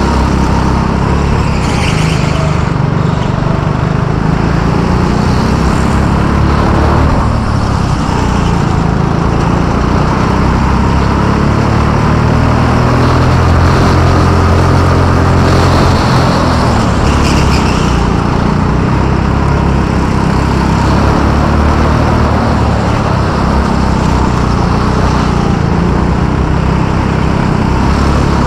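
A go-kart's small engine runs loud and continuously close to the microphone. Its pitch rises and falls as the kart speeds up and slows through the corners.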